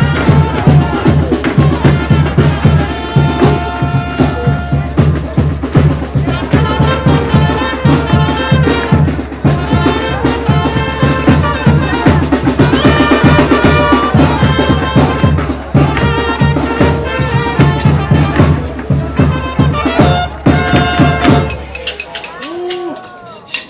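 Tamborazo band music: brass playing a melody over a steady bass-drum beat. The music stops about two seconds before the end.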